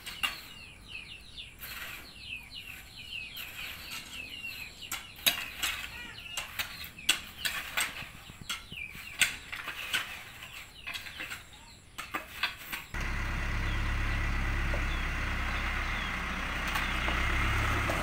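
Hoes chopping and scraping into soil in irregular knocks, with birds chirping throughout. About thirteen seconds in, it switches to a dump truck's diesel engine idling steadily.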